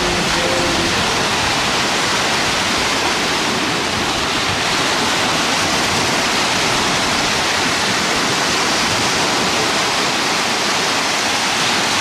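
Black Sea surf breaking on the shore, a steady loud rush of waves and foam.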